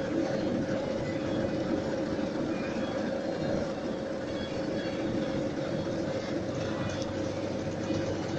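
Befama carding machine running steadily as its rollers card alpaca wool: an even mechanical whirr with a constant hum.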